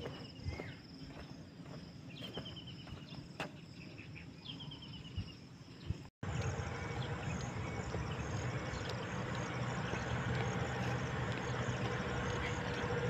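Outdoor insect drone with a bird giving a quick run of short, slightly falling notes three times in the first half. About six seconds in, a cut brings louder, noisier ambience with a low steady hum, while the pulsing insect sound carries on.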